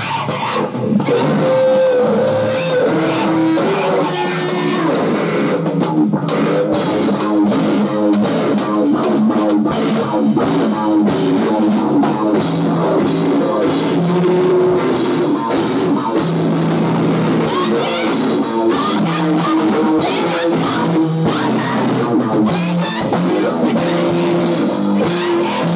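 Live rock band playing loud: electric guitars, bass guitar and drum kit, with a woman singing into a hand-held microphone.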